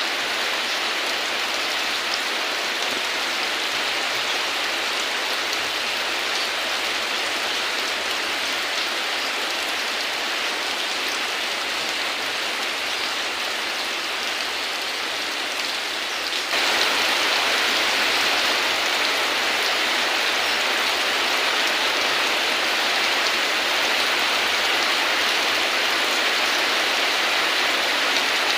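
Steady rain falling in an even hiss. About halfway through it suddenly becomes louder and brighter and stays that way.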